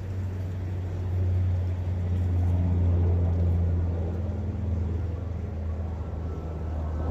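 Low, steady engine drone from a passing motor, swelling about a second in and then slowly easing off.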